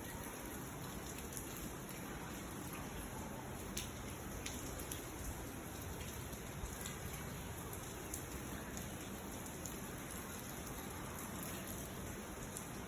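Steady rain falling, an even hiss with occasional sharper taps of drops.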